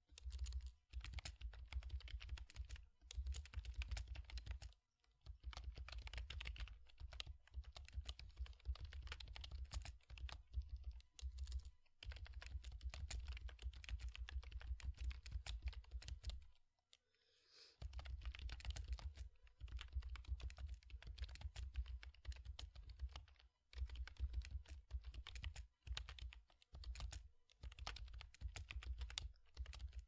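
Typing on a computer keyboard: a fast, steady run of keystrokes broken by short pauses, the longest about 17 seconds in.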